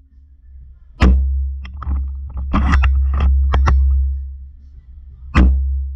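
Spring-powered SSG10A1 airsoft bolt-action sniper rifle firing with a sharp snap about a second in, then a run of clicking and rattling as the bolt is worked, and a second snap near the end, over a low rumble on the microphone.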